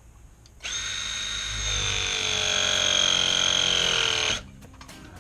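Ridgid RP 210 ProPress tool running one press cycle on a copper fitting: a motor whine of about three and a half seconds that starts suddenly, falls slightly in pitch toward the end, and cuts off abruptly.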